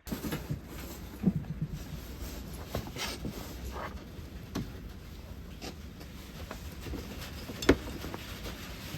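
Irregular scraping and clicking as material is worked by hand off the outside of an iron Stage6 50cc cylinder so that it fits an engine block that is too narrow for it. One sharp click stands out near the end.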